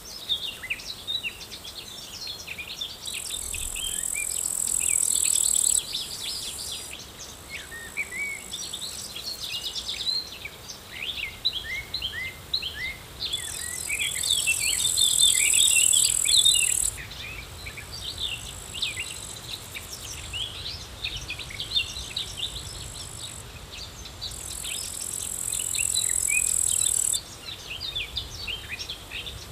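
Many small birds chirping and singing together, with a high insect buzz that swells and then stops abruptly three times, each lasting about three seconds.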